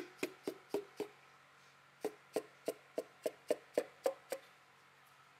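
Butt of an orange hammer's handle tapping a piston crown, driving the ringed piston through a ring compressor into an engine cylinder bore. Rapid hollow taps, about three to four a second, come in two runs: about five, a pause of about a second, then about nine more that stop a little after four seconds in.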